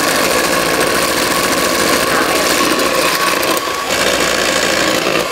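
Electric hand mixer running at high speed with a steady motor whine, its twin beaters whipping egg whites and sugar into a meringue in a plastic bowl.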